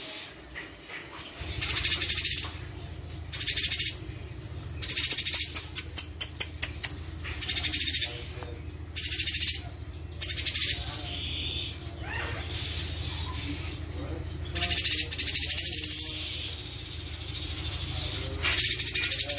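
Caged orange-bellied leafbird (cucak cungkok) singing in loud, high, rapid phrases about every one to two seconds, with a quick run of clipped notes around five to seven seconds in. It is in full song, its phrases packed with mimicked fill-ins.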